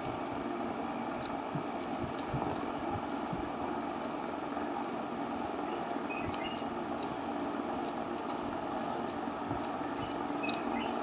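Rubik's cube being turned by hand, scattered light plastic clicks of its layers over a steady background hum. A few short high chirps come and go.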